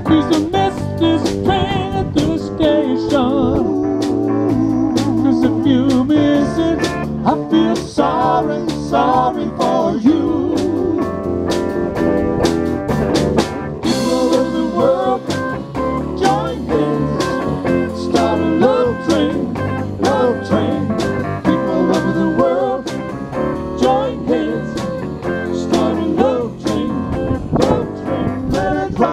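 Live band playing an instrumental section: an electric guitar lead with bending, wavering notes over drums, bass guitar and keyboard, with a cymbal crash about halfway through.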